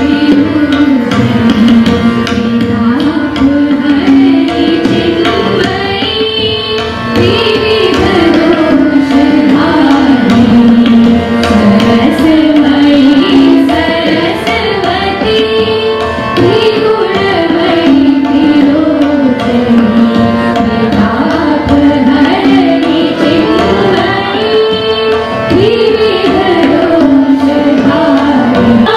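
A group of young women singing a devotional song together into microphones, the melody gliding in Indian classical style, with a drum beat keeping time underneath.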